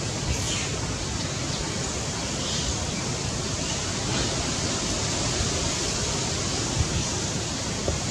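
Steady rushing noise with no distinct event, like outdoor wind or background hiss.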